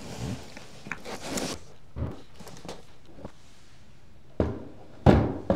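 Foam packing rustling and scraping as a 21 kg sensor is lifted out of its box, followed by a few light knocks and then two heavy thuds near the end as the sensor's housing is set down and shifted on a table, the last thud the loudest.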